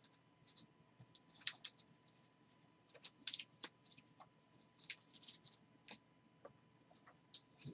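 Trading cards in plastic sleeves and rigid toploaders being handled and shuffled through by hand: faint, irregular scratchy slides and small clicks of plastic against plastic.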